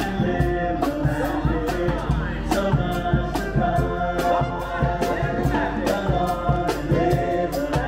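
Upbeat pop celebration song with a group of voices singing over a steady drum beat.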